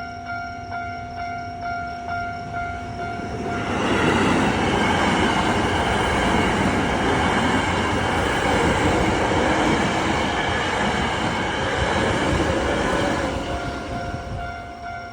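Japanese railway level crossing warning bell ringing in a steady repeating ding. About three and a half seconds in, a train passes through the crossing, and its loud rumble and wheel noise cover the bell for about ten seconds. The bell is heard again as the train clears.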